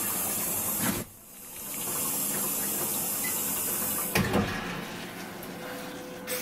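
Electronic bidet toilet seat's wash nozzle spraying water: a steady hiss that cuts off about a second in, then comes back and runs on. A few sharp knocks about four seconds in.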